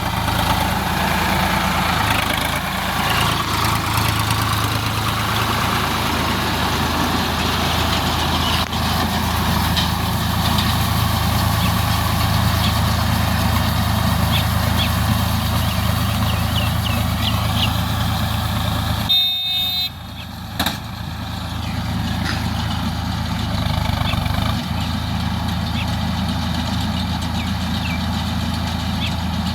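Tractor engine running steadily to drive a baler, a low even hum with machinery clatter over it. The sound briefly dips and changes about two-thirds of the way through.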